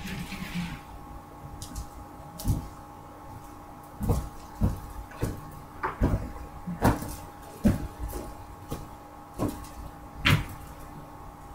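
Irregular knocks and clacks, about a dozen of them a second or so apart, some sharper than others, like things being handled and set down, over a steady hum.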